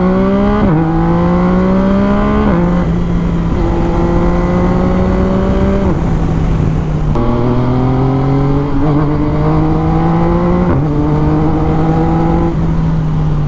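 Yamaha MT-09's 847 cc crossplane inline-three breathing through an Akrapovic full carbon exhaust, accelerating through the gears: the pitch climbs, then drops sharply at each upshift, about five times, with a stretch of steady cruising in the middle.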